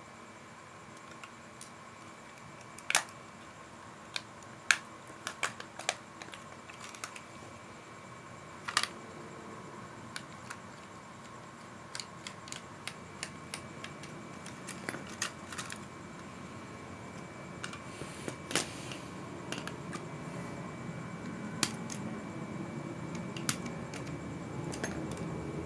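Scattered small clicks and taps of a plastic toy drone body being handled and taken apart, its screws being undone. A faint steady high whine runs underneath.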